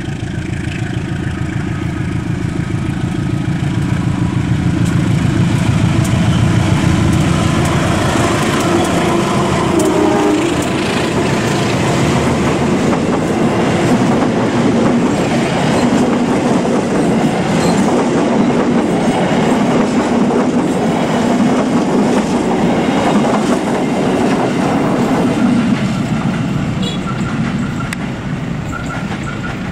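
A diesel-electric locomotive passes at speed hauling a long train of passenger coaches. Its engine rumbles loudest in the first several seconds, then a long run of coach wheels rattles over the rails, fading near the end as the train moves away.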